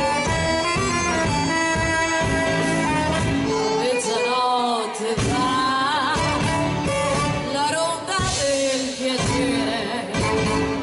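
Live band music: a song played with instruments, with a wavering sung or melodic line in the middle and no break in the music.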